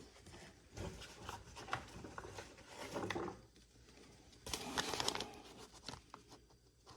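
Small items and papers being handled in a toolbox drawer: rustling and light clicks and knocks in several short bursts, the longest rustle about two thirds of the way through.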